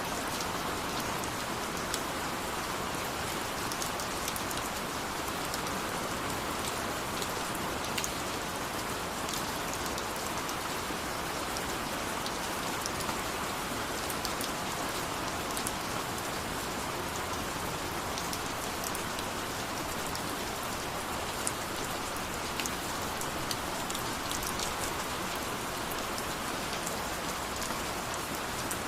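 Steady rain falling, an even hiss with the ticks of individual drops hitting a surface scattered through it.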